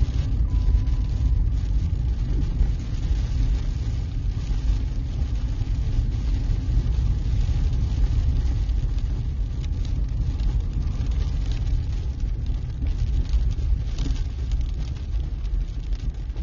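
Vehicle road noise heard from inside the cabin while driving on a dirt road: a steady low rumble with scattered clicks and rattles.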